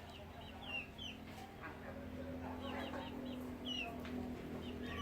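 Chickens calling with short, high, falling chirps in scattered runs, over a low steady hum that grows louder after about two seconds.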